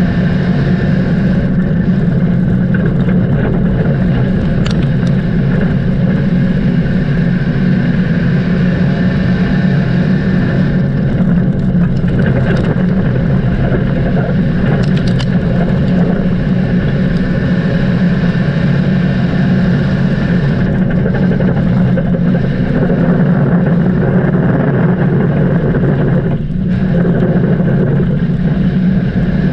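Dirt-track race car engine running at speed, loud and steady, with a brief dip in level near the end.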